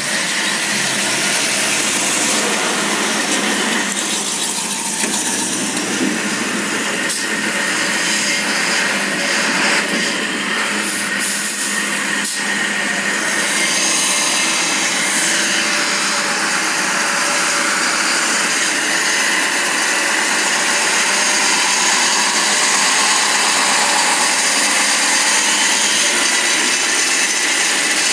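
Kamaz fire truck's diesel engine running close by, a steady rough, rasping noise.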